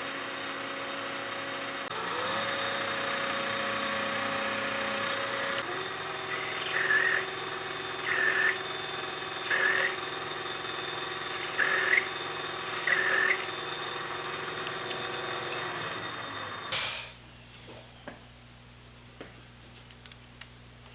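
Belt-driven air compressor running steadily under its electric motor, with five short, higher-pitched bursts over it in the middle. The running sound cuts off abruptly about seventeen seconds in, leaving a quiet room with a few faint clicks.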